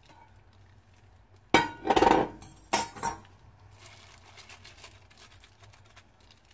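Stainless steel mixing bowl clattering: two loud clanks of metal on metal about a second apart, as the bowl is knocked against the pot and set down, with the kitchen scissors in it.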